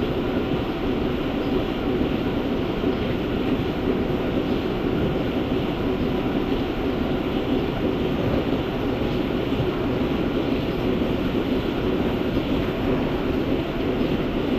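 Dairy milking-shed machinery running: a steady mechanical rumble and hum from the milking plant during milking, even throughout.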